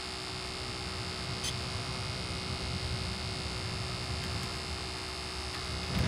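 Steady electrical hum with a faint high whine. A louder rush of air from the cab's blower fan starts right at the end.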